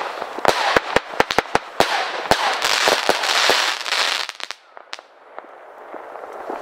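A Nico 'Tornado Fire' 50-shot consumer firework battery firing: repeated sharp reports with dense crackling from the bursting crackle stars. It dies away about four and a half seconds in, when the battery is spent.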